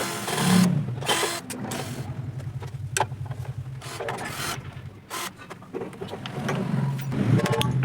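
An electric motor humming steadily, with a fine rapid flutter, while metal parts are handled: scattered sharp clicks and knocks, and a louder noisy burst within the first second.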